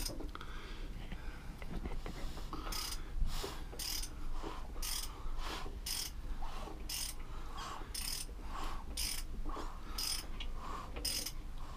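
Ratchet wrench clicking in a regular series of strokes, about one every half second or so, as the crankshaft of a Volvo Penta KAD 44 diesel is turned over by hand to bring number 2 cylinder's valves up to rocking. The clicking starts a couple of seconds in.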